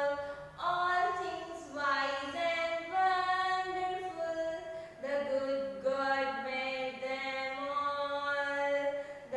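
A woman singing slowly, holding long notes.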